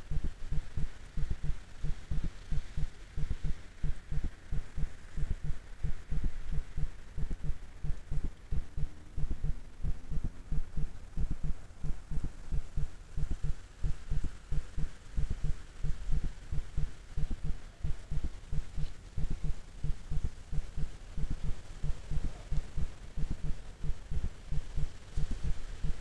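Rapid, irregular low thumps, several a second, with a dull rumble beneath, picked up by a trail camera's microphone. No sound from the fox stands out.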